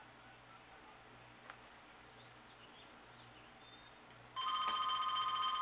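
A telephone rings with a steady electronic warble, starting about four seconds in. Before it there is only faint room sound and a single click.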